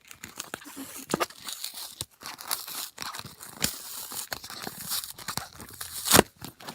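Packaging of a Tena liner sample pack being torn open and crinkled by hand, a run of rustling and crackling with one sharp, loud crackle near the end.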